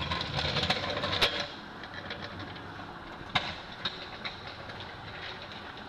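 Rustling handling noise as a handheld camera is moved around under a car body, with two sharp clicks about a second in and a little past halfway, over a steady background hiss.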